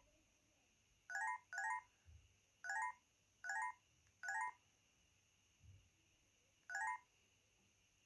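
Panasonic EB-X300 mobile phone's key tones as its navigation keys are pressed through the menus: six short electronic beeps, each a quick rising chirp, spaced unevenly about a second apart.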